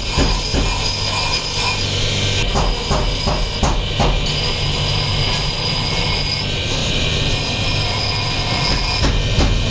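Metalworking machinery running with a steady low hum and a high hiss, with several sharp metal knocks, a quick run of them about three to four seconds in.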